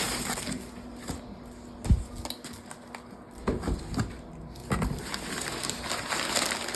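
Unpacking and handling noises: packing paper rustling and crinkling, with scattered light knocks and one heavier thump about two seconds in.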